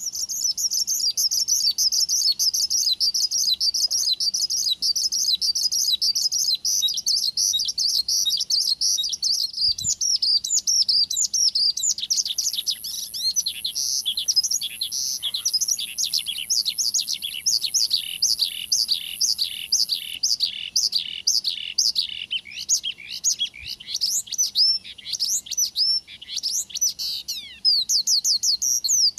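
Horsfield's bush lark (branjangan) in full song. For the first dozen seconds it gives a dense, rapid, high-pitched warbling. After that comes a long run of quick downward-sweeping notes, about three a second, then a brief break near the end before the rapid warbling resumes.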